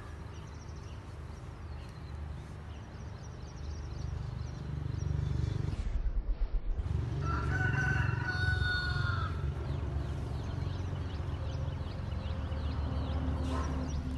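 A rooster crowing once, a single call about two seconds long a little past the middle, over a steady low rumble.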